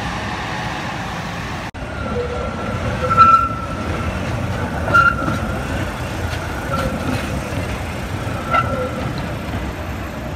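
Tram passing on rails set in cobblestones: a steady low rumble of wheels on track, with short high squeals three times as it rounds a curve. The sound breaks off for an instant about two seconds in.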